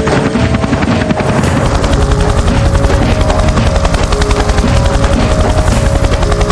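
Helicopter rotor sound: fast, even chopping of the blades that starts abruptly, with a few thin steady tones over it.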